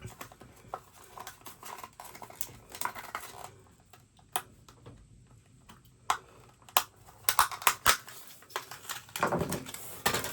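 Small metal hardware and hand tools being handled: scattered sharp clicks and clinks, a quick run of several near the middle, and a brief rustle near the end.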